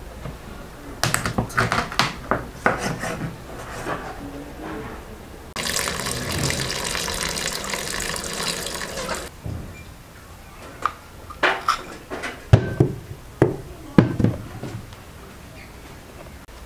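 A cleaver chopping raw chicken thighs on a wooden cutting board: a quick run of sharp strikes. Then a steady stream of water is poured over the chicken pieces in a bowl for about four seconds, followed by several separate sharp knocks.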